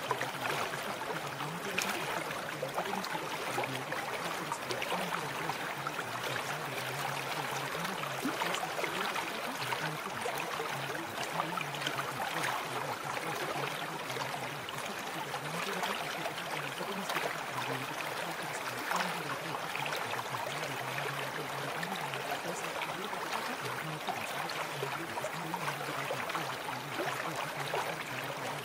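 Steady, unbroken running-water noise, like a flowing stream, with a faint wavering low hum beneath it.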